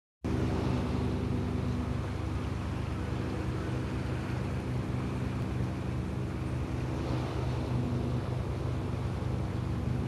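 Steady low engine drone with an even hiss over it, unchanging throughout.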